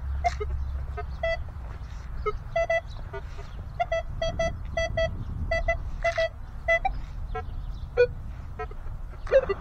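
Minelab Equinox 900 metal detector sounding many short, choppy beeps as the coil sweeps, mostly at one mid pitch with a few lower tones, often in quick runs of three or four. These are target signals that the detectorist reads as lots of foil in the ground.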